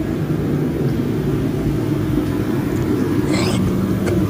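Straight-piped 6.4-litre HEMI V8 of a Dodge Daytona 392 idling steadily, its open exhaust loud and even.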